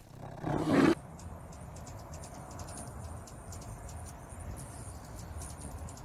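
A brown bear gives one short, loud growl about half a second in. Then, after an abrupt change, hummingbirds at a feeder make rapid, high, thin chips and ticks over a steady low hum.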